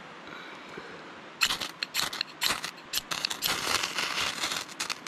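Ferro rod scraped hard with the squared-off spine of a survival knife, throwing sparks. A quick run of harsh, rasping strikes begins about a second and a half in, a few spaced strokes first, then faster and closer together.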